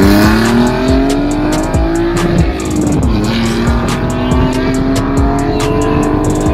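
BMW E46 320Ci's 2.2-litre M54 B22 inline-six exhaust note as the car accelerates: the pitch climbs, drops sharply about three seconds in as it shifts up, then climbs slowly again. Music with a steady beat plays underneath.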